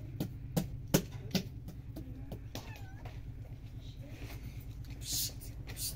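A cat meowing, with sharp slaps and knocks of bread dough being worked in a plastic basin in the first second or so, and a plastic bag rustling near the end.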